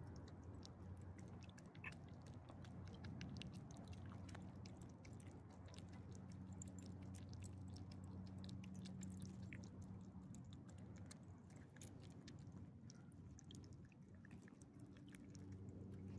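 Faint, quick clicks and smacks of an elderly small dog chewing and licking soft food from a hand, over a steady low hum.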